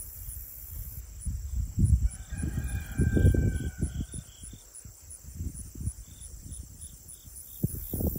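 A rooster crowing once, about two seconds in, the call lasting a little over a second. Low rumbling thumps come and go throughout, with faint regular insect chirps behind.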